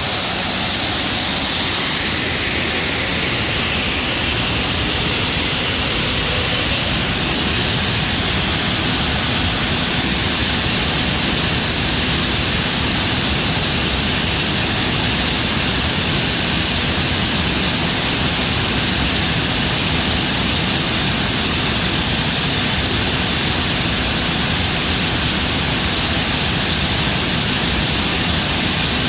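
Atlas Copco ZR315VSD oil-free rotary screw air compressor running steadily: a loud, even rushing noise with a faint low hum underneath.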